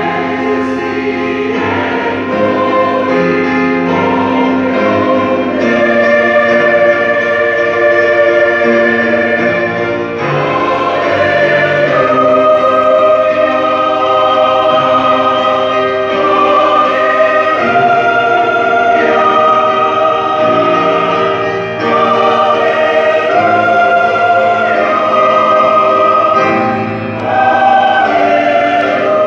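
Church choir singing a hymn in harmony, holding each chord for a second or two before moving to the next.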